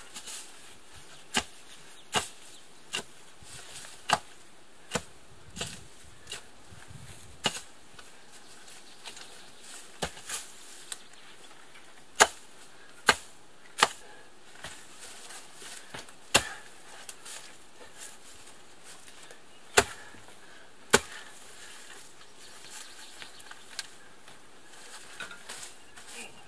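Sharp chopping strikes of a short-handled tool into roots and turf, irregular, roughly one a second with longer pauses, some hits much louder than others.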